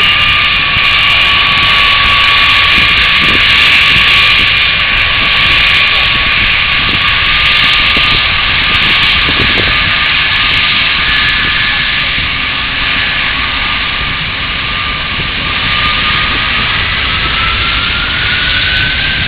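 Antonov An-124 Ruslan taxiing, its four D-18T turbofan engines running with a steady whine over a loud rush of air. Near the end the whine rises in pitch.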